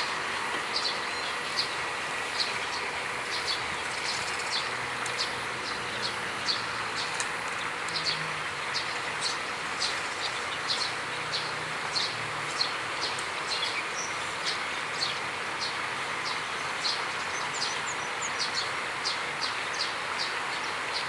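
Outdoor ambience: a steady rushing hiss with short high chirps repeating about once or twice a second, and a faint low hum around the middle.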